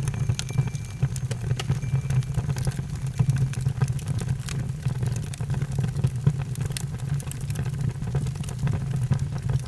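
Bonfire burning: a steady low rumble of flames with frequent sharp crackles and pops throughout.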